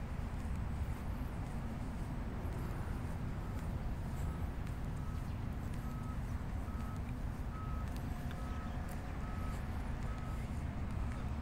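Wind rumbling on the microphone, with a vehicle's reversing alarm beeping at an even pace, a little more than once a second, from about three seconds in until near the end.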